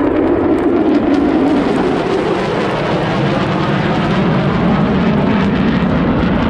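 Two aircraft passing overhead in formation: loud, rushing engine noise whose pitch falls as they pass and fly away.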